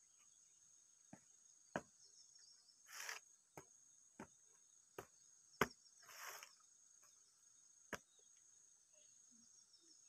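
Near silence: faint steady high chirring of insects, with a few scattered soft clicks and two brief rustles.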